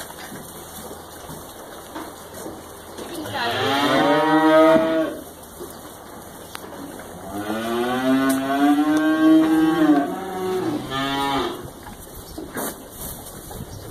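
Jersey heifers mooing: one call about three seconds in, then a long moo near the middle followed at once by a short one.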